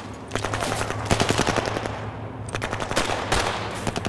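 Automatic gunfire in rapid bursts of many shots, with a short lull about two seconds in, over a steady low hum.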